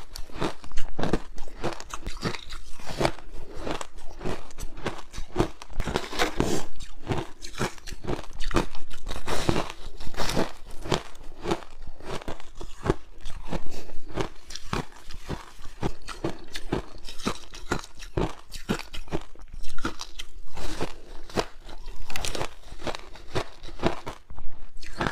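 Frozen passion fruit ice being bitten and chewed close to the microphone: a rapid, irregular run of sharp crunches and cracks.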